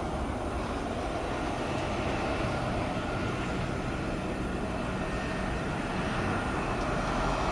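Airbus A320 jet engines heard from a distance: a steady rumble that swells slightly near the end.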